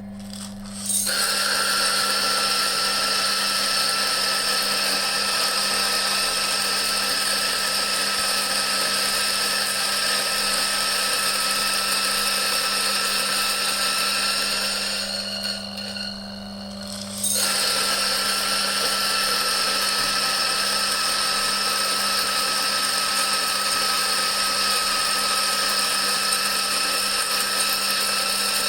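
BG T64 electric coffee bean grinder running: a steady motor hum, and from about a second in the loud, even noise of beans being ground through the burrs. Roughly halfway through the grinding noise drops away for about two seconds, leaving the motor humming, then returns.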